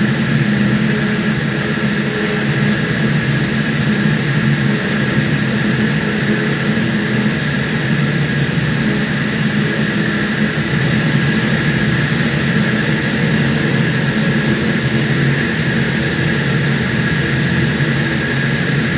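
Loud, steady running of a 1300-ton centrifugal chiller compressor in surge, a dense machine noise with a constant whine above it.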